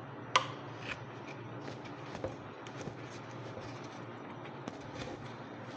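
Small metal and plastic motor parts being handled during hand repair work. There is one sharp click about half a second in, then light scattered taps and ticks over a faint low hum.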